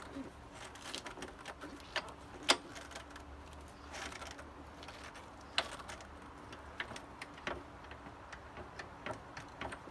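Scattered light metallic clicks and ticks from a motorcycle jack being worked to lower the bike, with a sharper click about two and a half seconds in and another just past halfway.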